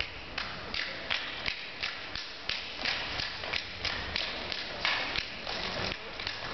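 A step team stepping in unison: rhythmic stomps and claps at about three hits a second.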